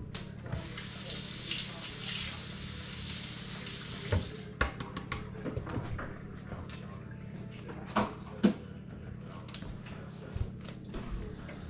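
Kitchen tap running for about three and a half seconds, then stopping. Scattered knocks and clicks follow, with a low steady hum underneath.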